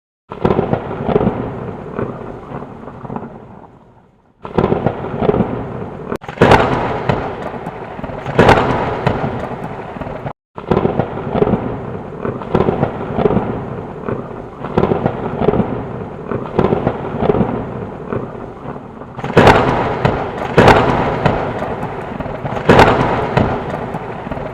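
Thunder rumbling loudly, with several sharp cracks of nearby strikes. The sound cuts out briefly a few times and comes back suddenly, as if separate thunderclaps have been spliced together.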